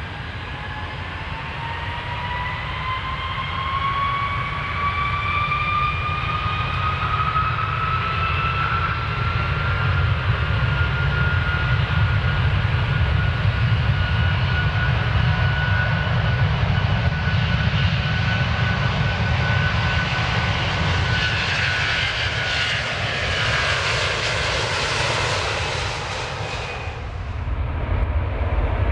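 Airplane taking off: its engines run up with a whine that rises in pitch over the first ten seconds, then hold steady while a roar builds and grows brighter. The high part of the roar falls away suddenly about 27 seconds in, leaving a low rumble.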